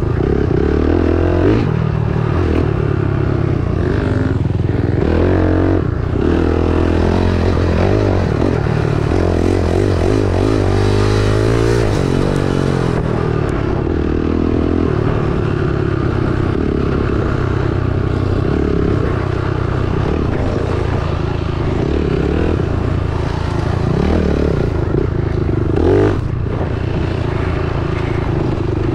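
Dirt bike engine running continuously as it is ridden, its revs rising and falling.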